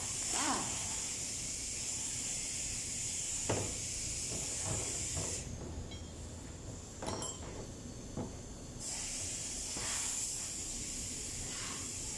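Compressed air hissing steadily from a shop air hose at a hydraulic pump. The hiss cuts off about halfway through for roughly three seconds, leaving a few light clicks and knocks of metal parts, then starts again.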